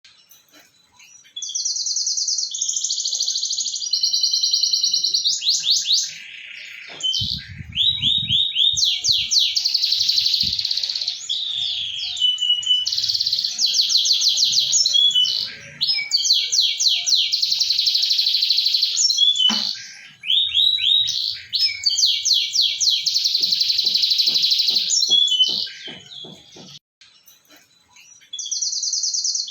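Domestic canary singing long, rapid rolling trills, phrase after phrase with short pauses, with a longer pause near the end.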